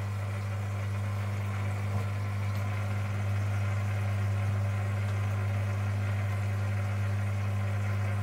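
Steady low hum of aquarium equipment running at the crab tank, unchanging throughout, with a faint tap about two seconds in.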